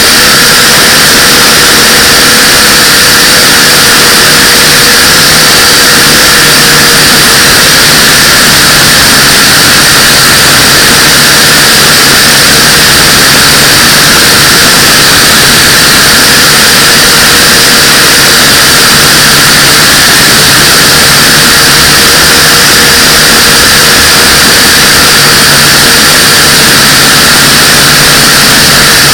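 Small quadcopter's motors and propellers running, a loud steady whirring hiss that holds the same pitch throughout.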